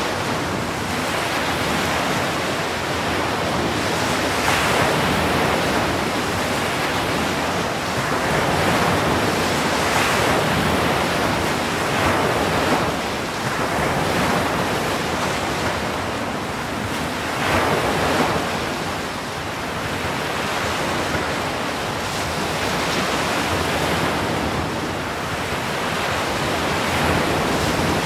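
Atlantic surf breaking on the shore: a continuous rush of waves and churning foam that swells each time a wave breaks, every few seconds.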